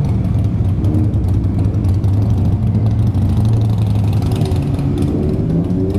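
Several motorcycle engines running at low revs in a parking garage, a steady low drone that rises a little in pitch about four seconds in. Among them is a Honda CBR600RR fitted with a new Two Brothers exhaust.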